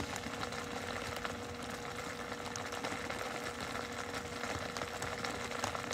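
An engine or motor running steadily: a low hum with one steady tone through it, the tone stopping shortly before the end.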